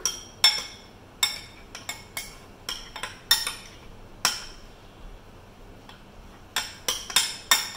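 Steel spoon clinking against a glass mixing bowl while chopped fruit is stirred, in irregular sharp clinks with a short ring. The clinks pause for about two seconds in the middle, then come quickly four times near the end.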